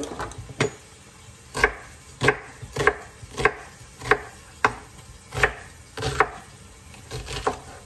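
Chef's knife chopping an onion on a wooden cutting board: about a dozen sharp knocks of the blade against the board, at an uneven pace of roughly one or two a second.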